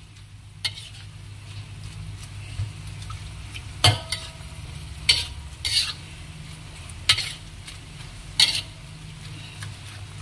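A metal spatula scrapes and clanks against a wok as sliced banana blossom stir-fries with a light sizzle. There are sharp strokes every second or so, over a steady low hum.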